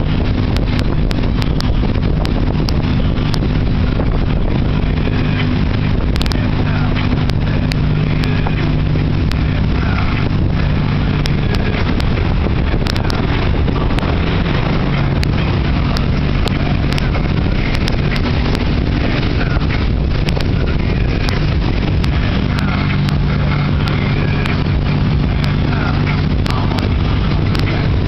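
Motorboat engine running steadily under way at towing speed, its low drone dipping slightly in pitch about halfway through, over the rush of the churning wake.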